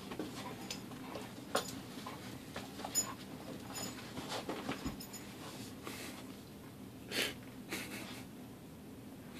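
A dog sniffing and breathing hard with its nose under a bed, in short irregular puffs, with scattered small clicks and rustles.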